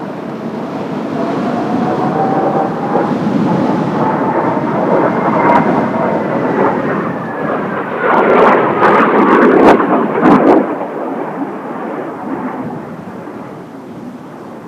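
Kawasaki T-4 jet trainer flying past, its twin turbofans making a loud rumble with a whine that rises and then falls in pitch. Strong wind gusts buffet the microphone about eight to ten seconds in.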